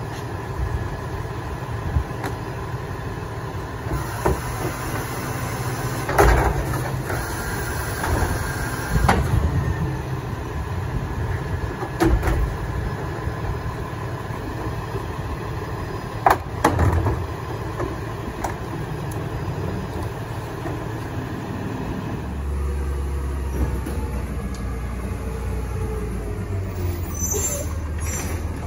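Rear-loading garbage truck's diesel engine running while a wheeled trash cart is emptied into its hopper, with several loud bangs and clanks through the first half. About three-quarters through, the sound changes to a steadier, deeper engine rumble from an automated side-loading garbage truck.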